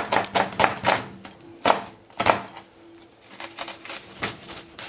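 Chef's knife cutting an onion on a cutting board: a quick run of taps, then two louder knocks of the blade on the board about half a second apart, then lighter taps.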